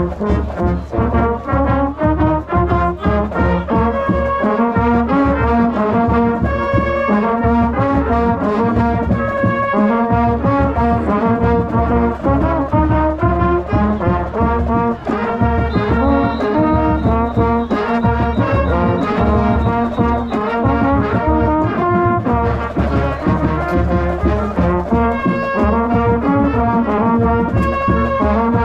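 Marching band brass playing a loud, fast tune with a steady drum beat underneath, heard from within the mellophone section, with the mellophones closest.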